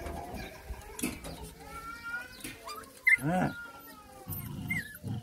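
A dog whining, with one louder, falling whine about three seconds in, begging for food.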